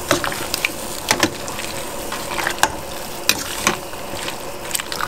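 Metal ladle stirring cabbage in a stainless steel pot of soup, clinking against the pot several times at irregular intervals over a steady hiss.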